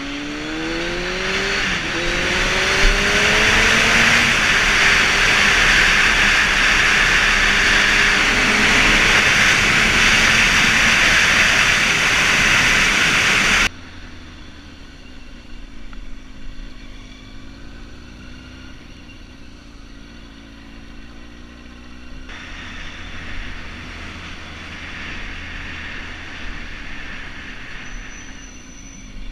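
Kawasaki Ninja 636 inline-four engine accelerating through the gears, its pitch rising in steps, under a loud rush of wind on the microphone at speed. About 14 s in, the sound drops abruptly to the quieter engine at low speed, its pitch rising and falling. Near the end the wind noise builds again.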